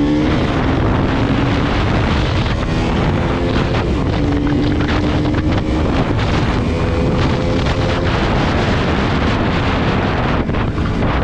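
KTM Duke 200's single-cylinder engine running as the motorcycle is ridden, its pitch rising in the first second and then holding steady, under heavy wind noise on the microphone.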